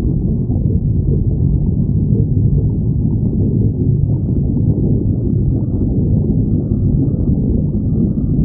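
Human stomach growling, low-pitched and continuous without a break.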